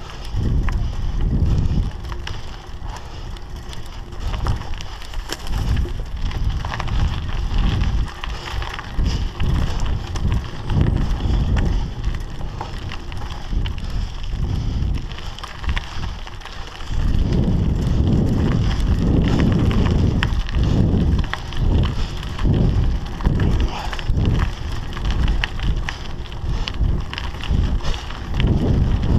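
Scott Scale 960 hardtail mountain bike ridden along a dirt forest trail: tyres rolling and crunching over the ground, with the bike rattling over bumps and wind rumbling on the microphone. The rumble gets louder and choppier a little over halfway through.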